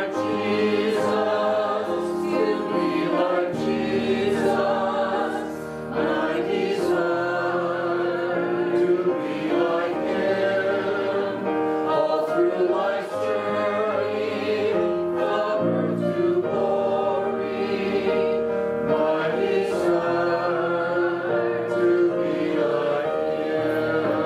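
A small worship band singing a short worship chorus, several voices together over keyboard and electric bass guitar.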